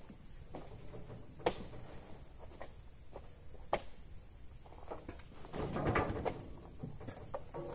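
Two sharp knocks about two seconds apart, then a louder rustling crunch a little past the middle, over a steady high-pitched drone.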